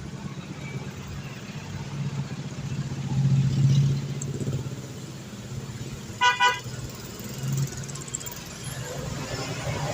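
A bus engine rumbling, louder about three to four seconds in, then a short double blast from the bus's basuri horn about six seconds in.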